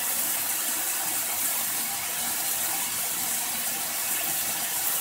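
Water running steadily from a kitchen faucet through a hose into a DIY filter bucket.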